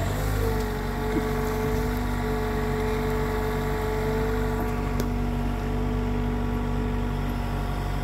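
Bobcat T66 compact track loader's diesel engine running steadily while the bucket pushes into a dirt pile, with a steady whine over the engine.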